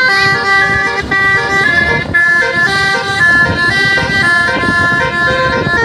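Bus telolet 'basuri' horn playing a melody: several held, flute-like tones at once, stepping to new pitches every fraction of a second, over a low rumble.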